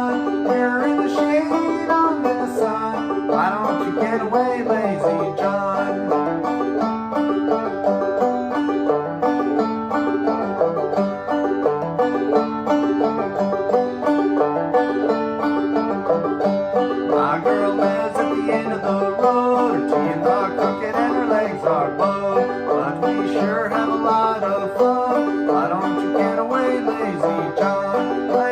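Gold Tone CC Carlin12 open-back five-string banjo played clawhammer style: an old-time tune picked in a steady, even rhythm over a held drone note.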